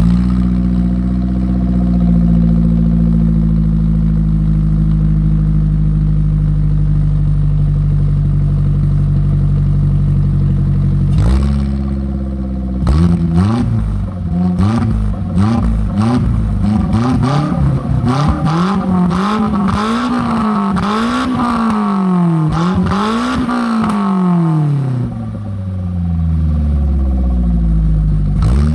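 Car engine breathing through a one-off loud exhaust with an RS-R exhaust manifold and an inner silencer fitted. It idles steadily for about eleven seconds. From about thirteen seconds in it is blipped about nine times, each rev rising and dropping quickly in pitch, then settles back to idle near the end.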